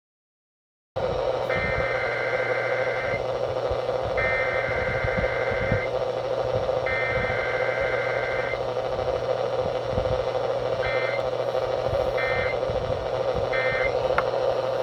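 NOAA Weather Radio broadcast heard through a receiver with steady static and hum, starting about a second in. Three raspy SAME digital header bursts follow, each nearly two seconds long, then three short end-of-message bursts, with no attention tone between them: the data pattern of a weekly test.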